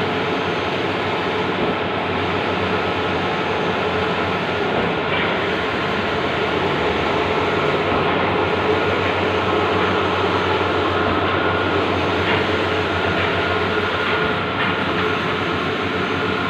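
Bluewin large-format outdoor printer running: a steady mechanical whir with a constant hum and a few faint clicks.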